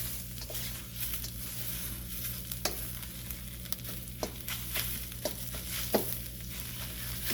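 Eggs sizzling in a hot frying pan while a utensil stirs and scrapes them, with scattered sharp taps and scrapes over a steady sizzle.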